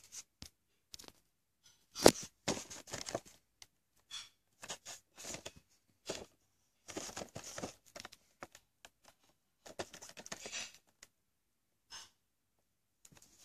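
Cardboard Funko Pop box with a plastic window being handled and turned over: scattered scrapes, rubs and crinkles of the packaging, with a sharp knock about two seconds in.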